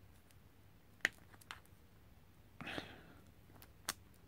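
Diagonal side cutters snipping the wires off an LED bulb's circuit board: a sharp snip about a second in and another near the end, with a short soft rustle between.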